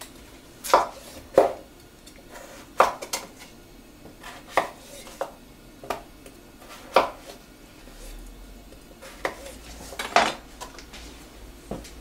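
Chef's knife cutting potatoes into wedges on a plastic chopping board: a dozen or so sharp knocks of the blade hitting the board, at uneven intervals.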